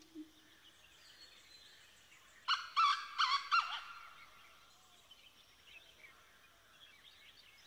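Birds calling: four sharp calls in quick succession about two and a half seconds in, over faint twittering.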